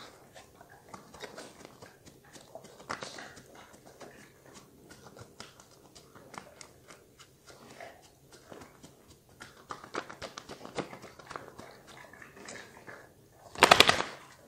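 A Doberman moving about with scattered small clicks and taps, then shaking its head hard near the end: a loud half-second burst of rapid flapping slaps from its ears.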